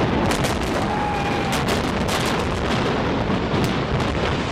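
Explosives implosion of a reinforced concrete domed stadium: a rapid run of sharp cracks from the sequenced demolition charges over a continuous low rumble as the dome and its walls collapse.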